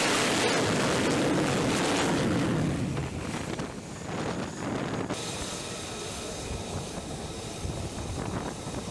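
F-35 fighter's single turbofan jet engine running loud on a carrier flight deck as the jet lands and rolls out. The rush drops away after about three seconds to a lower, steady jet and wind noise.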